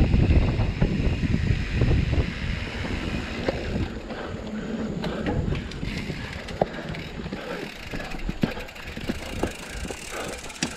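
Mountain bike ridden along a dirt singletrack: wind buffets the camera microphone with a low rumble that is loudest for the first few seconds. As the pace drops it gives way to tyre noise and scattered sharp clicks and rattles from the bike.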